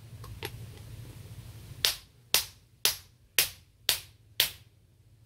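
A hammer striking a bearing installer disc six times, about two blows a second, driving a tapered carrier bearing down onto a differential carrier. The blows are metal on metal, seating the bearing squarely.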